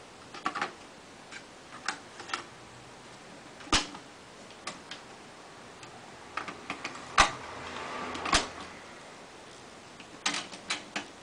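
Mechanical clicks and clacks of a Technics RS-TR355 double cassette deck being handled: a button press and the cassette door opening, a cassette taken out and another pushed in, the door snapped shut, then a quick run of button clicks near the end. The loudest are three sharp clacks about four, seven and eight seconds in.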